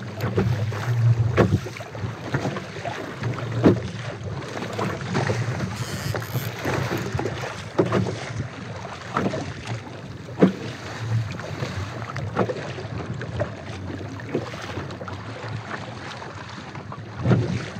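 Wind rushing on the microphone and sea water slapping against the hull of a Viking Profish 440 fishing kayak, with irregular sharp knocks every second or two.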